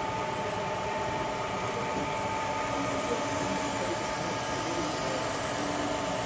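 N scale model train running on a layout: a steady whir with a steady high whine.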